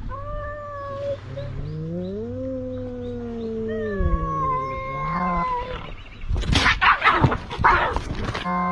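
Two cats in a standoff yowling: long, drawn-out calls that waver slowly up and down in pitch, overlapping one another. About six and a half seconds in they break into a fight, a quick run of screeches and scuffling.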